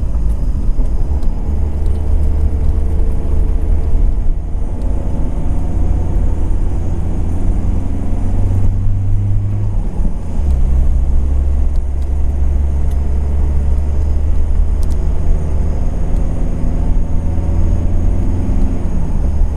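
A car driving: a steady low engine and road rumble, with the engine note rising briefly and then dropping back about ten seconds in.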